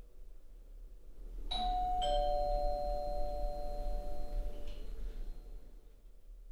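Two-tone ding-dong doorbell chime: a higher note about one and a half seconds in, then a lower note half a second later, both ringing out and fading over a few seconds.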